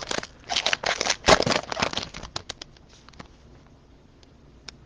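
Crinkly rustling and clicking of trading-card packs and plastic card sleeves being handled: a cluster of crackly rustles for about the first two seconds, then a few scattered clicks.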